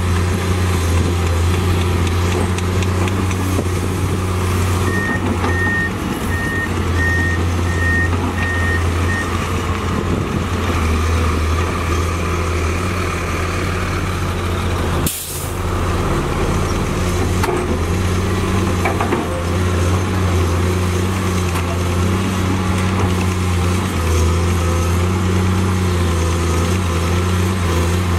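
Komatsu PC210 hydraulic excavator's diesel engine running steadily with a deep hum as it digs soil. A run of about seven short, high beeps comes in near the start, and there is one sharp click about halfway through.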